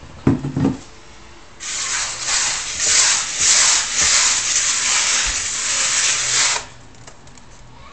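A hand rubbing and rolling couscous grains against the inside of a wooden bowl: a gritty, pulsing scraping rush that starts about a second and a half in and stops suddenly about five seconds later. A couple of brief low knocks come just before it.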